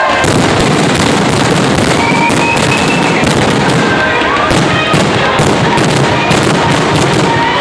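Fireworks display going off in rapid succession: a dense, continuous run of overlapping bangs and crackle, with a few short whistles gliding in pitch.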